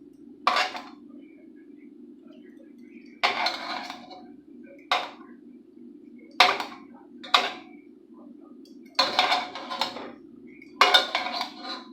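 Dishes and utensils clinking and clattering, about seven short knocks, over a steady low hum.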